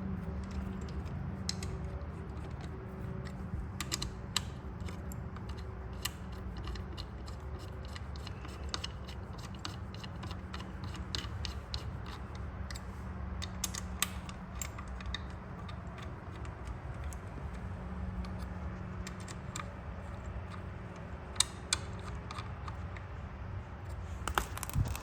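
Irregular small metallic clicks and taps as bolts are screwed into a machined part by hand, over a steady low hum.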